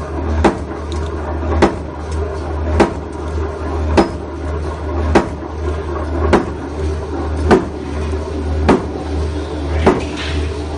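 Razor barbed wire machine running: a sharp metallic clank at an even beat, a little more than once a second, over a steady low motor hum and continuous rattling of the mechanism.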